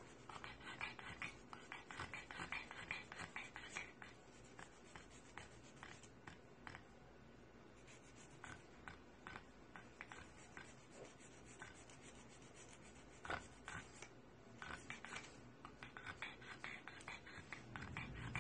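Faint close scratching and rubbing: clusters of short, irregular scratchy strokes, busiest in the first few seconds and again toward the end.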